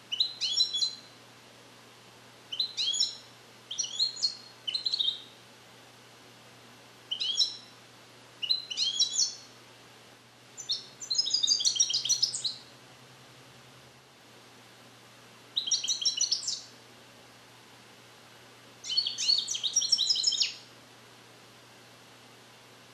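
Captive-bred European goldfinch, song-trained in the Neapolitan passata style, singing about ten short bursts of rapid high notes separated by pauses. The longest phrase, about a second and a half, comes near the middle. This is a young bird still perfecting its song: it is beginning to repeat the passate but does not yet sing them complete.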